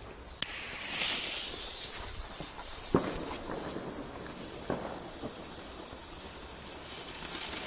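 A Nico Colour Changing fountain firework catching with a short click, then spraying with a hiss that is loudest at first and settles to a steady hiss. Two sharp crackles come partway through.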